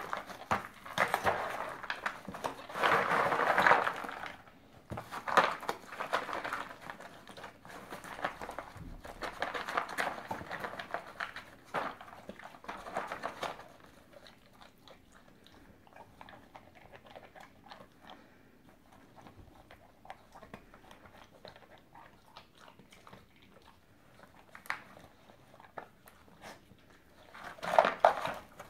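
A dog rummaging in a cardboard yogurt-pot tray used as a puzzle feeder: cardboard rustling and scraping, with bites and crunchy chewing of dry treats. It is busy for the first half, then quieter with scattered clicks, and a loud burst of rummaging comes near the end.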